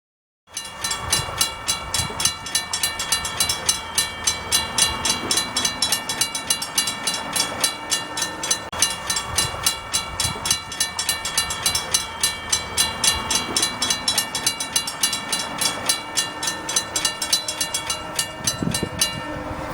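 Amtrak Silver Star passenger train wheels rolling over old jointed rail, making a rapid, regular clickety-clack as each truck crosses the rail joints, over a steady high metallic ring. It begins suddenly about half a second in, and the clicking stops shortly before the end.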